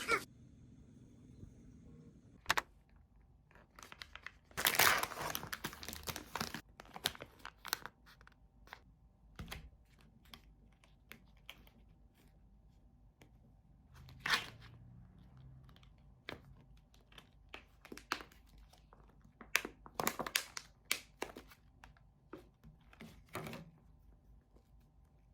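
Crinkly material being handled and torn, in short rustling bursts with scattered clicks and knocks; the longest stretch of rustling comes about five seconds in.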